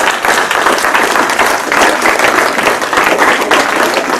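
Audience applauding: many people clapping together, loud and dense.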